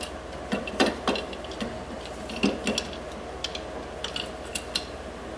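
Sharp clicks and knocks of a plastic distributor cap, with spark plug wires attached, being handled and seated on the distributor: a cluster of clicks in the first second, then scattered single clicks, over a steady low hum.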